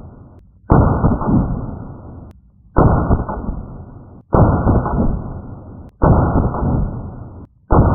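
Semi-automatic pistol fired five times at a slow, even pace, about one shot every one and a half to two seconds. Each shot is a sudden crack followed by a long muffled boom that dies away before the next.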